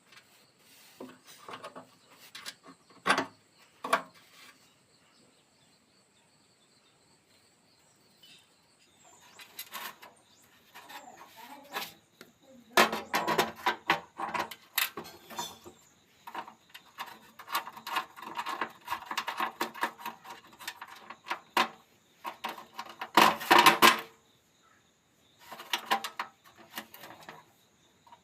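Hard parts being handled, with scattered clinks, knocks and scraping and a few louder knocks in the second half.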